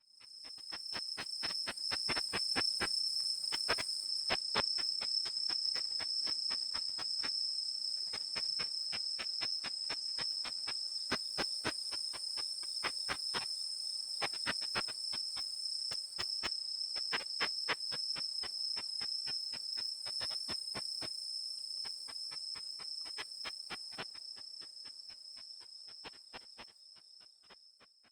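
Unzen sasakirimodoki katydid (Tettigoniopsis ikezakii) singing in ultrasound, made audible by a bat detector. It is heard as a steady high tone over a fast, even train of clicks, several a second. It swells in at the start and fades away near the end.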